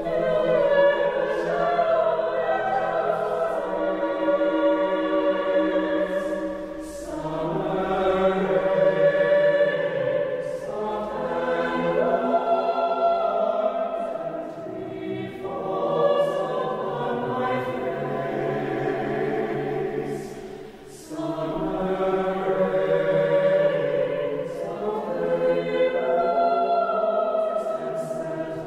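Mixed chamber choir singing sustained chords in long phrases, in a reverberant church, with brief breaks between phrases about a quarter, half and two-thirds of the way through.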